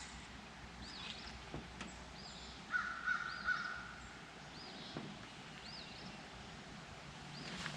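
Birds calling: a short, high, arched chirp repeats about once a second, and a wavering, warbling call comes in about three seconds in.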